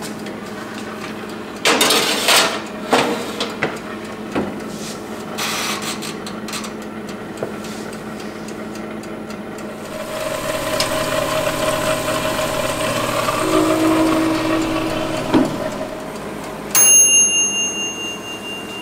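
Metal baking pan clattering against the rack and door of a Black+Decker toaster oven as it is loaded and the door shut. A steady hum follows, then near the end the toaster oven's timer bell rings once, a sharp ding that fades over about a second and a half: the bake is done.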